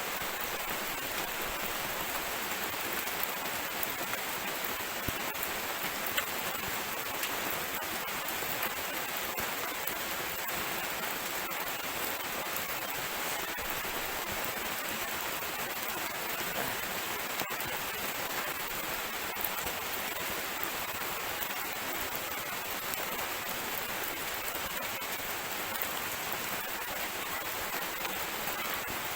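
Steady hiss of light drizzle falling on surfaces, dotted with faint drop ticks.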